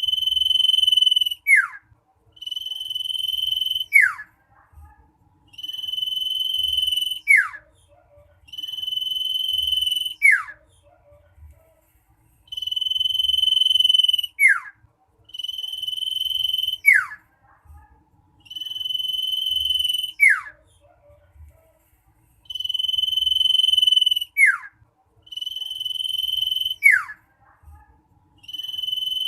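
Common iora (cipoh) calling loudly and insistently: a long steady high whistle that ends in a quick falling note, repeated about ten times at roughly three-second intervals.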